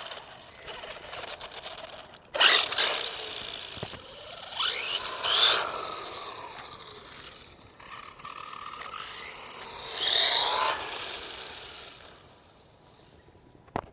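WLtoys 12428 RC truck's electric motor whining through several hard accelerations, its pitch rising with speed each time, the loudest near the end. There is a sharp noisy burst about two and a half seconds in.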